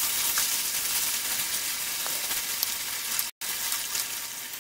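Marinated chicken pieces sizzling and crackling in hot oil in a frying pan, a steady hiss as they are briefly fried. The sound cuts out for an instant about three seconds in, then carries on a little quieter.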